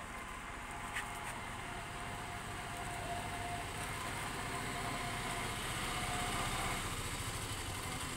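Motor traffic on the road: a vehicle engine drawing nearer and passing, growing louder until about six and a half seconds in and easing off slightly after, with one short click about a second in.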